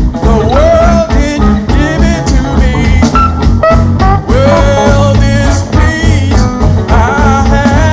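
Live sacred steel gospel band music: a man sings lead into a microphone over a steady bass and drum beat.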